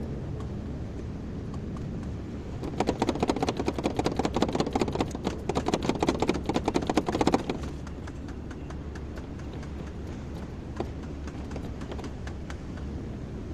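Kobelco excavator running steadily, with a burst of rapid, dense clattering from about three seconds in to about seven seconds in.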